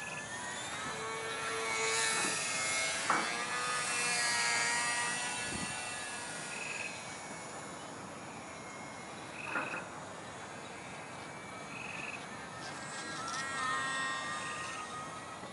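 Radio-controlled model airplane's motor whining overhead, its pitch shifting up and down, louder in the first few seconds and then dropping back. A short high chirp repeats every two to three seconds.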